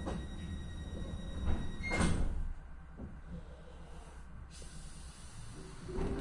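Sliding doors of a stopped Regionova diesel railcar closing: a steady high tone runs and cuts off about two seconds in with a thump as the doors shut.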